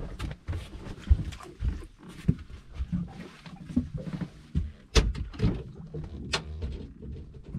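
Irregular knocks and thumps on a small boat, with handling noise from a rod and reel being worked hard against a hooked fish; a few sharp knocks stand out about five and six seconds in.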